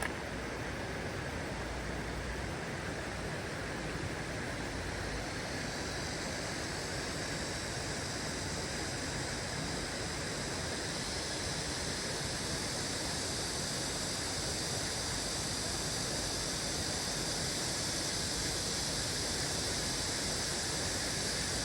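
Steady rush of flowing stream water, an even hiss with no distinct calls or knocks.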